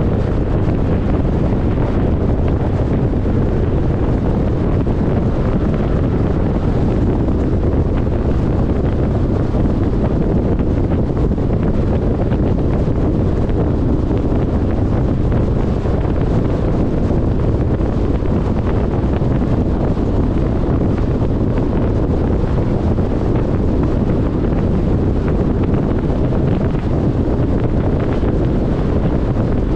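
Steady low rush of wind and road noise from a car driving at highway speed, with wind buffeting the microphone.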